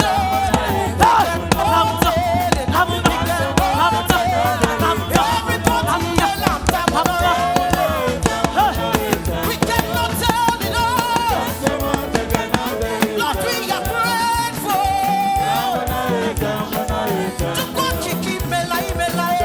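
Live gospel praise music: singing, probably wordless or unclear to the recogniser, over a band with drums, bass and a fast percussive beat.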